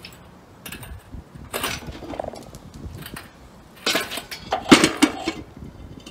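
Metal clinking and creaking from an engine hoist and its chain as the rear axle hanging from it shifts. There is one bout about a second and a half in and a louder cluster of clanks and squeaks from about four to five seconds in.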